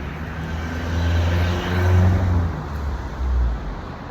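Car engine running, its low hum swelling louder twice and then easing.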